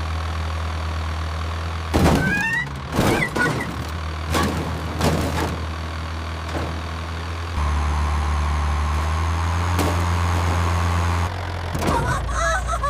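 Low, steady engine hum with a run of sharp clunks and knocks in the first half. The hum grows louder for a few seconds near the end.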